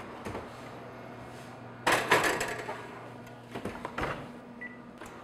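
Wall oven door being worked: a loud clatter about two seconds in as the door is opened and the pie goes onto the rack, a few knocks as the door is pushed shut, and a short electronic beep from the oven's control panel near the end.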